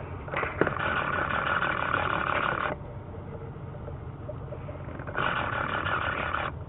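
Steady low rumble of a distant aircraft tow tractor's engine pulling an airliner, overlaid twice by a loud hiss that cuts in and out abruptly: from just after the start to under three seconds in, and again for about a second past the five-second mark.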